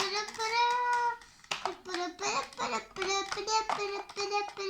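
A young child singing to himself in a high voice, with long held notes and short breaks between phrases and no clear words.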